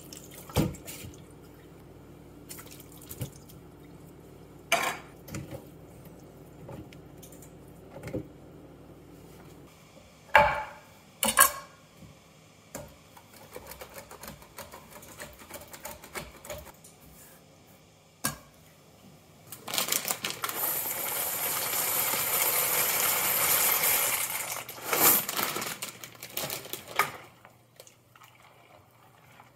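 Kitchen handling sounds: scattered knocks and clatters of a can, a grater and cookware, with about five seconds of steady rushing water from a tap a little past the middle, then a few more clatters.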